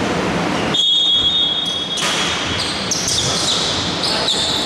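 Basketball bouncing on a wooden indoor court over steady hall noise. A high, steady tone sounds about a second in and lasts just over a second, and shorter high tones come again near the end.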